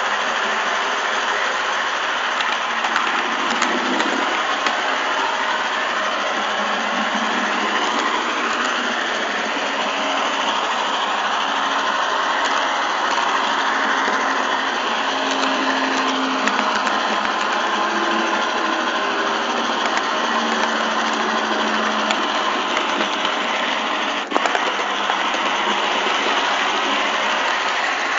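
Model train running along the track, its small motor and wheels making a steady running noise close to the camera riding on it, with one sharp click about 24 seconds in.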